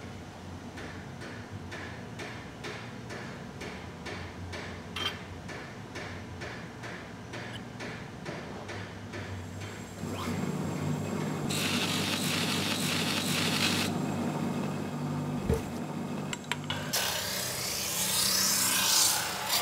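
Regular ticking, about two or three ticks a second, for the first half. About ten seconds in, an electric workshop machine starts humming steadily, with two spells of rasping, rubbing noise as metal is worked against it.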